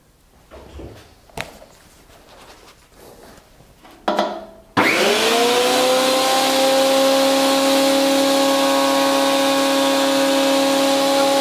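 A few faint knocks of wood being handled, then about five seconds in a combination jointer/thickness planer is switched on: its motor and cutterhead spin up in under a second and run on as a loud, steady high whine.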